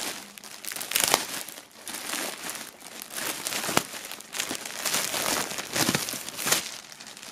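Clear plastic bag crinkling and rustling as a hoodie is pulled out of it, in irregular bursts with a few sharper crackles.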